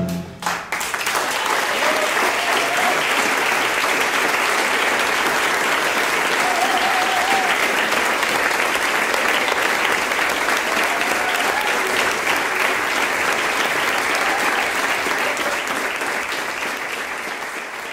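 A tango orchestra recording ends on its final note at the very start, then an audience applauds steadily, with a few faint calls, fading out near the end.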